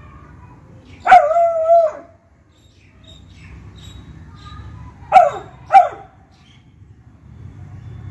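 Beagle barking: one long, drawn-out bark held at a steady pitch about a second in, then two short barks in quick succession around five to six seconds in.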